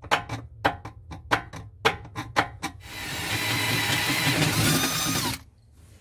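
A round file rasping in a hole in a metal drawer-slide fitting, about four quick strokes a second, rounding off the edge of the hole. Then a power drill runs steadily for about two and a half seconds and winds down.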